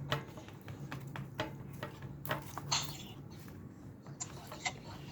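Slime being squeezed and poked by hand, giving an irregular string of small sticky clicks and pops.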